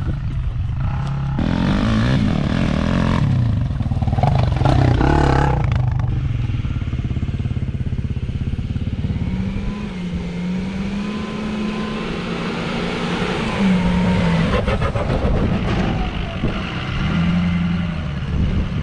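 Truck engine labouring up a steep, rocky four-wheel-drive road. Its pitch rises and falls with the throttle, and there is a brief rattle partway through.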